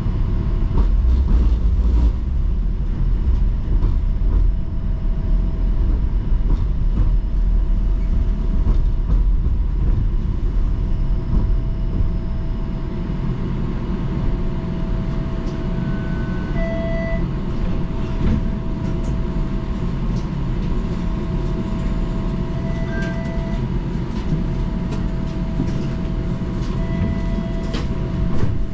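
Inside a Toronto TTC Flexity Outlook streetcar: a low rumble and steady electrical whine while it rolls, easing after about twelve seconds as the car stands at a stop. Several short electronic beeps sound in the second half.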